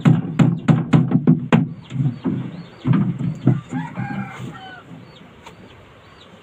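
A quick run of about eight sharp knocks in the first second and a half, then a rooster crowing once about four seconds in.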